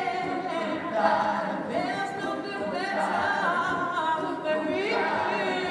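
Choir singing unaccompanied, several voices holding notes in harmony and moving to new chords every second or two.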